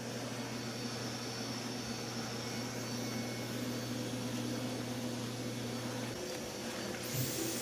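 Vacuum cleaner running with a steady motor hum and airflow noise; the low part of the hum drops out about six seconds in.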